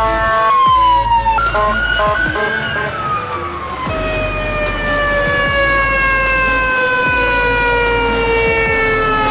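Emergency vehicle siren and horn: a short steady horn blast, then a choppy, quickly changing siren. About four seconds in, a fire engine's siren winds down in one long, slowly falling wail.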